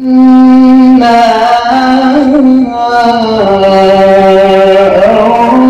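A man's voice chanting Quran recitation into a handheld microphone: long held notes that step and waver between pitches.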